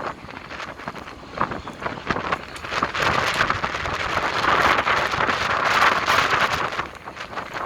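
Strong wind buffeting the microphone in loud gusts, swelling from about three seconds in and easing near the end, over the running engine of a 498-ton gravel carrier ship entering harbour.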